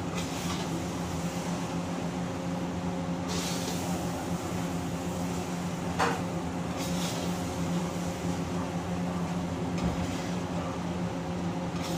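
Steady hum of a commercial kitchen exhaust hood fan, with a metal spatula scraping a few times through rice in a wok being stir-fried and knocking once against the pan about halfway through.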